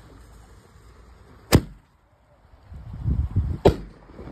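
Consumer silver willow canister shell firework: a sharp thump as the lift charge fires it from the mortar tube, then a second sharp bang about two seconds later as the shell bursts overhead.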